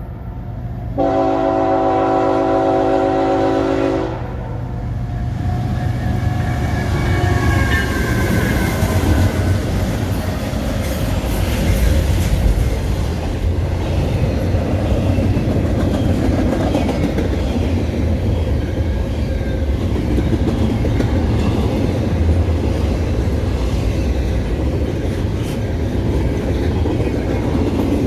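Westbound CPKC freight train led by a GE ET44AC diesel-electric locomotive: one horn blast about a second in, lasting about three seconds. Then the locomotive and its freight cars roll past with a steady rumble and rapid clacking of wheels on the rails.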